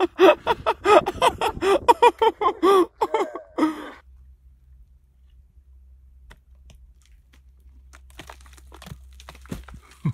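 A man laughing heartily in a quick run of ha-ha bursts for about three and a half seconds, stopping abruptly. After that there is only a low steady hum with a few faint scattered crunches and clicks.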